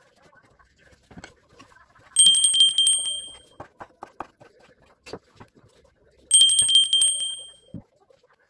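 A bicycle-style bell rung twice, about four seconds apart: each a rapid trill of strikes that settles into a ringing tone and fades. Between the rings, a knife taps on a wooden chopping board as ham is diced.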